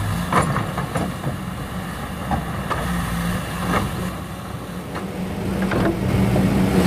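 Kobelco SK200 hydraulic excavator's diesel engine running steadily while it digs, with about eight scattered knocks and scrapes as the bucket works into the soil bank.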